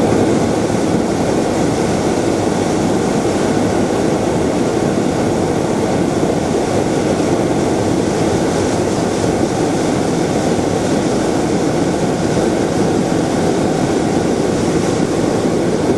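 Hot-air balloon's propane burner firing in one long, steady burn.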